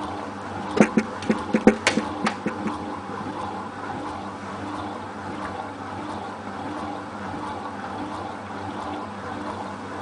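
Hotpoint Ultima WT960 washing machine drum turning wet towels on its intermittent spin, its motor humming steadily, with water swishing, heard through the open door. A quick run of sharp knocks comes about a second in.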